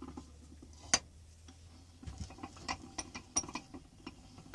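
A series of light, sharp clicks and ticks, with one loud click about a second in and a quick run of clicks near the three-second mark, over a steady low hum.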